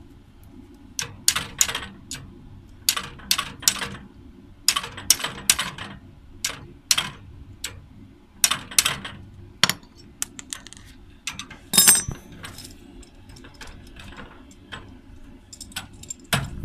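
Sharp metallic clicks from a flaring tool being worked onto the end of a copper refrigerant pipe, in quick groups of two to four about every one and a half to two seconds, with one louder knock about twelve seconds in.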